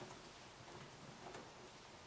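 Faint, sparse clicks of a screwdriver turning a self-tapping screw into a door-lock mechanism, over near-silent room tone.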